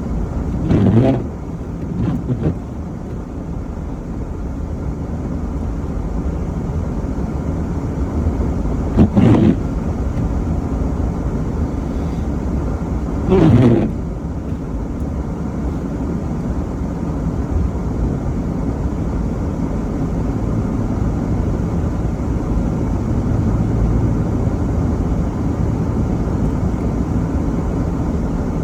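A car driving, with a steady low rumble of engine and road noise that grows slowly louder. A few short, louder sounds rise above it, the clearest about 9 and 13 seconds in.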